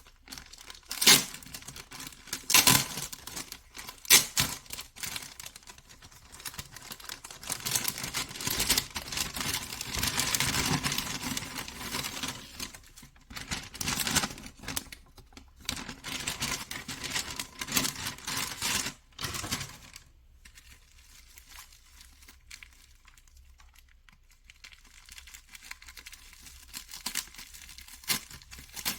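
Packaging crinkling and tearing as a parcel is unwrapped by hand, with a few loud sharp snaps in the first few seconds. After about twenty seconds it drops to light, occasional handling noises.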